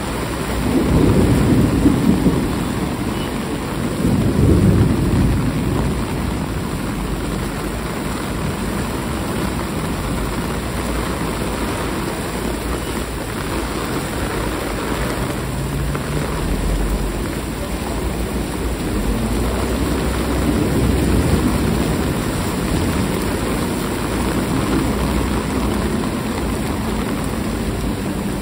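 Steady hiss of heavy rain, with two louder low swells about one and four seconds in.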